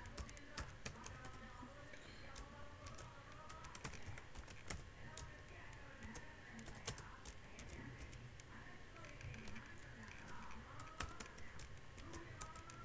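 Typing on a computer keyboard: quiet, irregular keystroke clicks in short runs with brief pauses.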